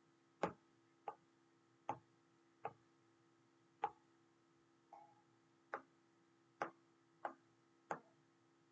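About ten light, separate clicks, unevenly spaced roughly one every half second to second, from working a computer's pointing device while selecting and moving a page item. A faint steady electrical hum runs underneath.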